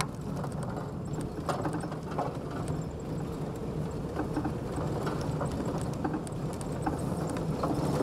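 Vehicle driving along a rough road, heard from inside the cabin: a steady low engine and road rumble with small scattered rattles and knocks.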